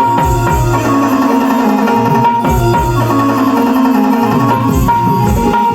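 Naman folk music from the Konkan: hand-drum strokes under a steady, held melodic line.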